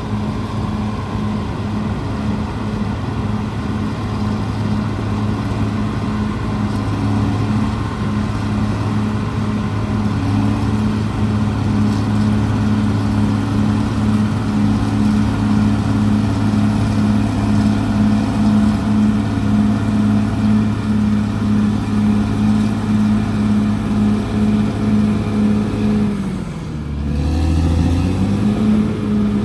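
Caterpillar D6R XL bulldozer's diesel engine running steadily at working speed with a pulsing throb. Near the end the engine speed sags briefly and then picks back up.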